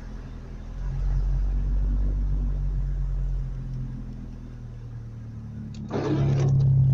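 A motor vehicle's engine running with a low, steady rumble that swells about a second in, eases, and swells again near the end, with a brief rushing noise about six seconds in.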